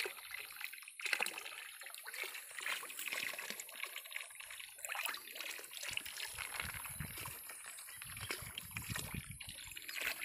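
Pond water sloshing and trickling in small splashes around a floating plastic bag of fish as it is handled, with low rumbling bumps joining in from about halfway through.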